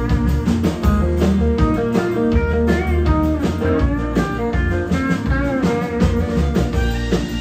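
Live country band playing, with a Stratocaster-style electric guitar taking the lead over drums, bass and acoustic guitar.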